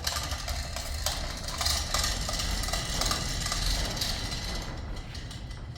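A machine starts up abruptly and runs with a loud rattling clatter and a low rumble, easing off near the end.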